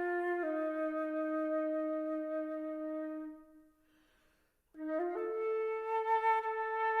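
Solo flute playing a long, low held note that fades away, then after a short silence a new phrase begins with a quick rise to a sustained higher note.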